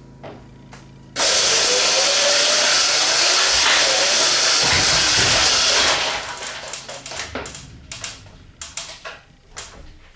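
A home-built giant walking robot's electric drive motor switches on about a second in and runs loudly for about five seconds as the legs take their first steps, then cuts out. Scattered clanks and knocks of the frame follow as it comes to rest.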